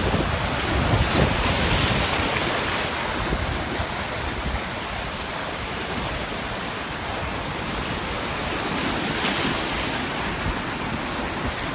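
Ocean surf breaking and washing in a steady rush, swelling a little twice, with wind buffeting the microphone.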